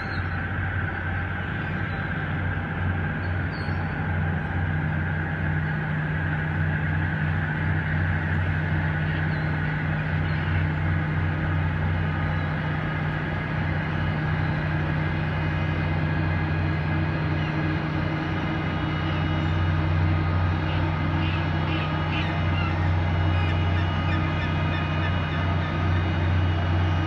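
Tugboat's diesel engine running with a steady low drone as it pushes a barge, growing a little louder near the end as the tug comes close. A few faint gull calls come over it now and then.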